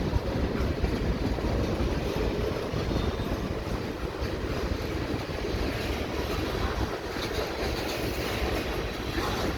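Freight cars of a slow-moving mixed freight train rolling past at about 10 km/h, a steady low rumble of steel wheels on the rails.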